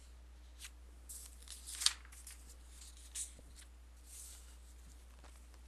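Paper rustling as the pages of a textbook are handled and turned, in a few soft swishes, the loudest about two seconds in.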